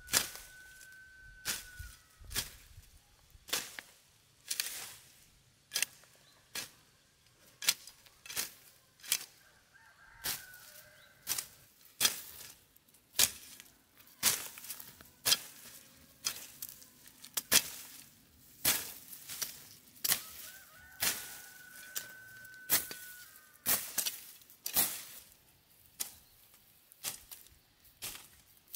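A machete slashing through weeds and grass, one sharp swish about every second in a steady rhythm.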